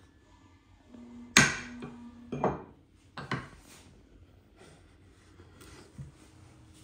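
Metal blocks set down hard on a wooden workbench: three sharp knocks, the first the loudest, about a second apart. Then a chisel scrapes in short strokes over an oak board, paring off the hardened knot filler.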